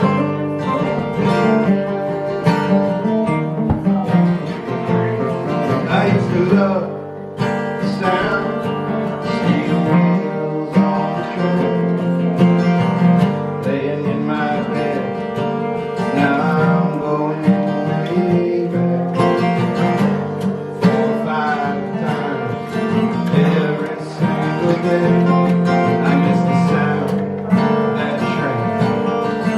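Live acoustic folk-country music from a small string band, led by strummed and picked acoustic guitars in a steady rhythm.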